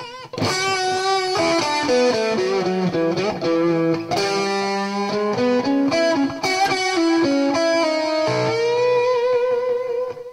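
Electric guitar playing a blues turnaround lick in E, a run of single notes with half- and whole-step string bends, ending on a long held note with vibrato.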